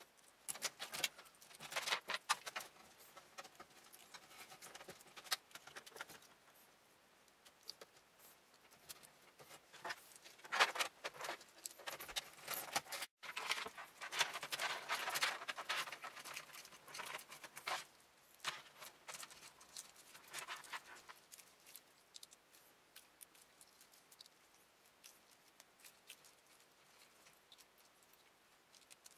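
Cables being handled and routed inside a PC case: scattered clicks, taps and rustles of plastic and wire in bursts, with quieter pauses between.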